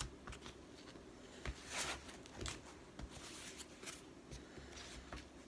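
Packaging being handled: faint light clicks and taps, with a brief rustle about two seconds in.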